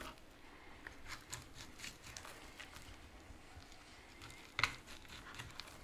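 A fillet knife cutting slices off a piece of smoked meat on a wooden cutting board: faint slicing and scraping with light clicks, and one sharper click near the end.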